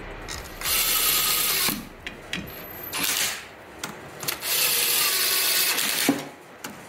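Cordless power driver running flywheel bolts into the engine in three bursts, the last about two seconds long.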